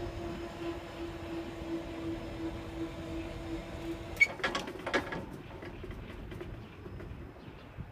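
Railroad crossing bell ringing as a steady pulsing tone, stopping about four seconds in as the crossing gate arm rises, followed by a few sharp clanks from the gate mechanism.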